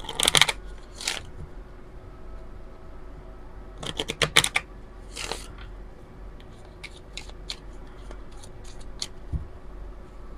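A deck of oracle cards being shuffled by hand: crisp bursts of cards riffling and slapping together, loudest at the start and again about four seconds in, then lighter taps and flicks of the cards.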